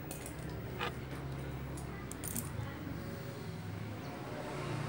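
Handling noise from a plastic meter case turned over in the hands: a sharp click about a second in and a few faint ticks a second later, over a low steady hum.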